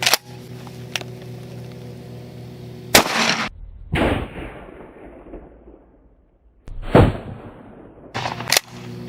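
12-gauge shotgun firing 00 buckshot into a ballistic helmet a few yards away: loud bangs about three and seven seconds in, each with a long fading tail, plus a sharp crack at the start and shorter cracks near the end.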